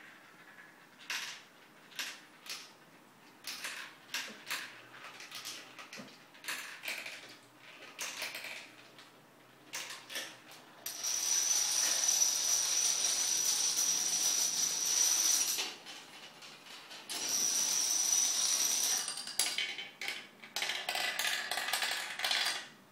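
Plastic toy dominoes toppling in a chain: scattered single clicks at first, then about 11 seconds in a long, fast clattering run lasting several seconds. After a short pause come two shorter clattering runs near the end.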